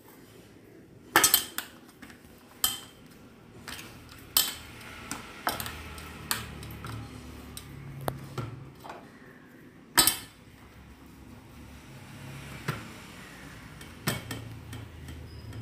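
Stainless steel plate clinking and knocking now and then as dough is kneaded and pressed on it by hand, in scattered sharp clicks, the loudest about a second in and about ten seconds in.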